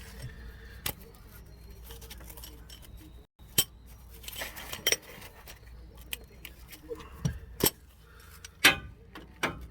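Scattered metal clinks and clicks of an adjustable wrench and hand tools on the lower shock-mount bolt and nut, as the nut is worked onto the new front shock of a Chevy Silverado pickup.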